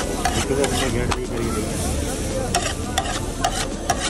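Steady rain falling, with frequent sharp taps of drops striking nearby surfaces.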